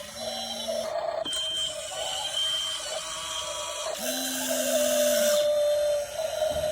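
Small electric motors of a radio-controlled construction vehicle model whining as they run, starting and stopping, with a louder stretch of whine a few seconds in.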